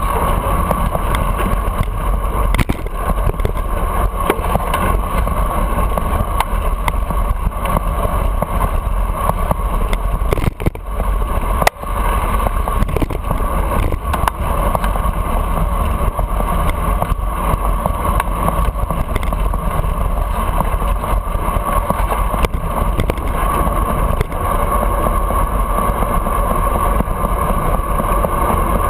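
Steady wind and road rumble on a handlebar-mounted camera's microphone while riding a bicycle in city traffic, with the engines of passing cars, taxis and buses mixed in. The noise briefly drops away about eleven seconds in and returns with a sharp click.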